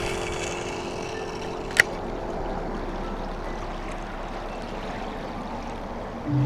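Steady rushing of lake water lapping, with one sharp click about two seconds in. Music starts right at the end.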